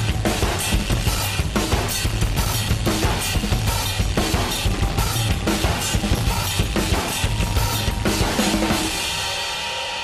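Backing music with a fast, driving drum-kit beat of bass drum and snare. Near the end the drums stop and the music fades out.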